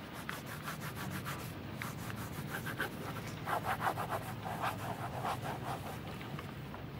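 Pen scratching on notebook paper in quick short strokes, with a louder run of strokes a little past halfway.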